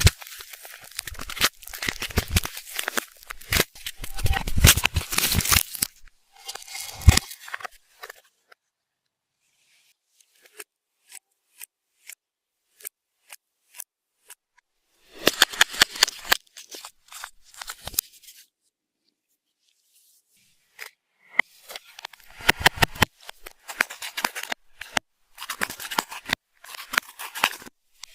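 Slime being squished and worked by hand, giving bursts of sticky clicking and crackling pops, with pauses between the bursts.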